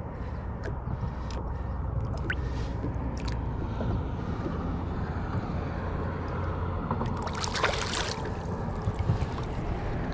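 Light water sloshing around hands and a hand-held sturgeon over a steady low rumble; about seven and a half seconds in, a louder splash as the released sturgeon kicks away.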